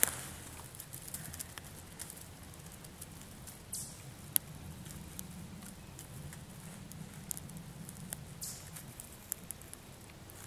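Small dry twigs being laid by hand over burning cotton-ball fire starters as kindling: scattered light clicks and snaps with a few brief rustles, quiet throughout.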